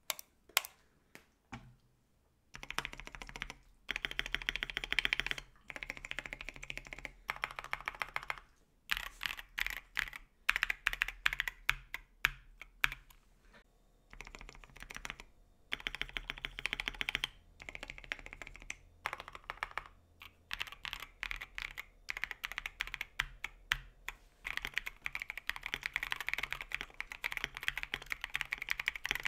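Mechanical keyboard with Tecsee Metal Coated linear switches being typed on: a few single keystrokes, then quick runs of key presses in bursts separated by short pauses.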